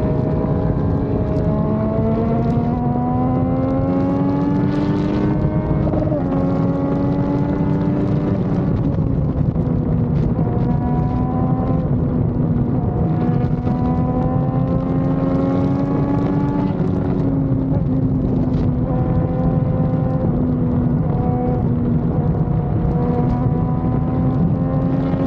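Motorcycle engine running at highway speed, its note climbing over the first six seconds, dropping about six seconds in, then holding fairly steady with small rises and dips. A steady low rush runs underneath.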